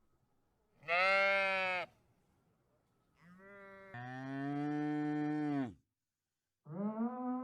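A livestock animal calling, moo-like, three times: a short call about a second in, then a long low call lasting over two seconds, and another starting near the end.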